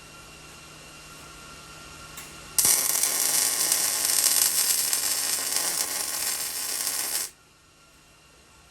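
Millermatic 190 MIG welder arc laying a weld bead on steel: a loud, even crackling that starts about two and a half seconds in and cuts off suddenly about five seconds later. Before it, only a faint low hum.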